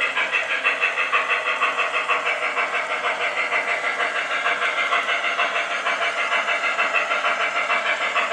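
Lionel Legacy Shay model steam locomotive's onboard sound system playing rapid, even steam chuffing as the engine runs.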